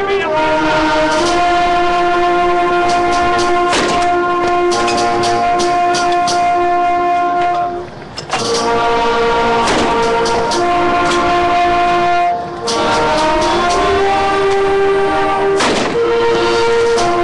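Bugle call: long, held notes stepping up and down in pitch, with two short breaks, about eight and twelve seconds in.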